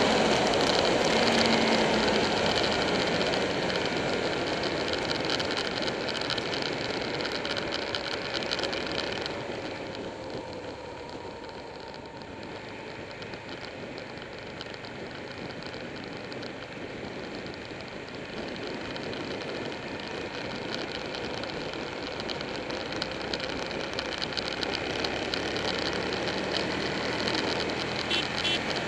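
Buell 1125R's V-twin engine running under way, with heavy wind and road noise on a bike-mounted camera. The level drops about ten seconds in and slowly builds again toward the end.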